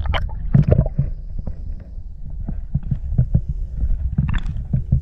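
Muffled underwater rumble with irregular knocks and clicks, as heard by a camera in a waterproof housing below the surface. The knocks cluster near the start and again about four seconds in.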